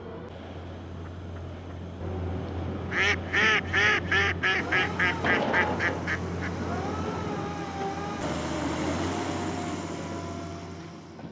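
A duck quacking a fast run of about a dozen calls that come quicker and fade away, over a steady low hum. A broad hiss comes in about eight seconds in.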